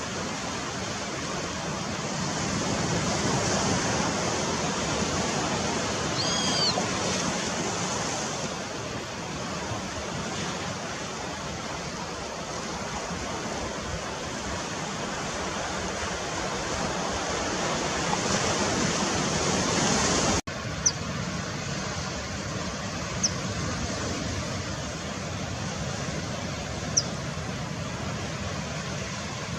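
Steady rushing outdoor noise, like wind buffeting the microphone, with a short bird call about six seconds in and three brief high chirps in the last third.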